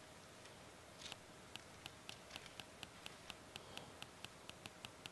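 Faint light clicks from a laptop, an even series of about four a second starting about a second in, over near-silent room tone.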